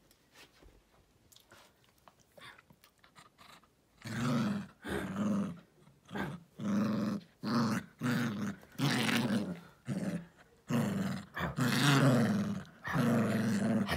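A small Yorkshire terrier play-growling as it attacks a stuffed toy elephant. After a few quiet seconds, a string of short growls begins about four seconds in and keeps going, one after another with brief pauses between them.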